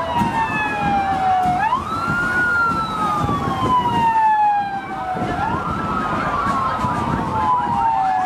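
Vehicle siren wailing, its pitch rising quickly and then falling slowly, the cycle repeating about every four seconds. A low, noisy rumble runs underneath.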